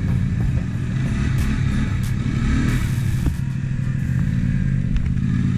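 Polaris ATV engine running steadily under way on a dirt trail, with a short rise in engine speed partway through.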